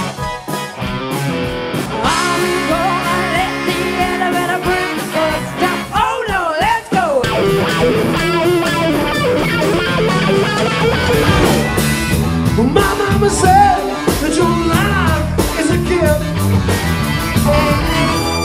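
Rock band music with singing and electric guitar.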